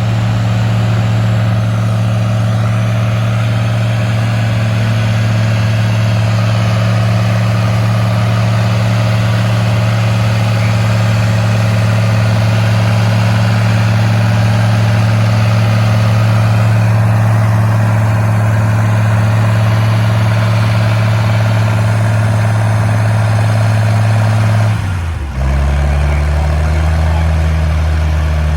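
Restored International Farmall 560 tractor's six-cylinder engine running at a steady speed. About 25 seconds in, the sound changes abruptly to a lower, deeper engine note.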